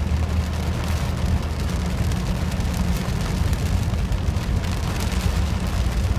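Car driving on a wet highway in heavy rain, heard from inside the cabin: a steady low road and engine rumble under an even hiss of rain and tyre spray on the car.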